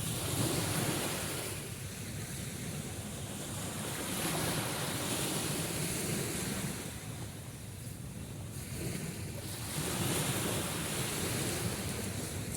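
Sea surf washing ashore, a steady hush that swells and fades in about three slow surges.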